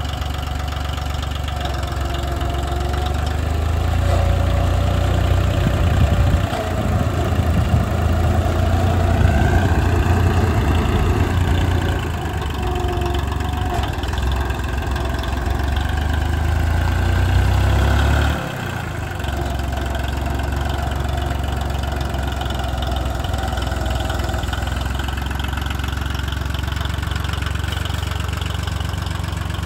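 Yanmar YM2610D compact tractor's diesel engine running as the tractor drives, getting louder about four seconds in and dropping back suddenly about two-thirds of the way through, then running on steadily.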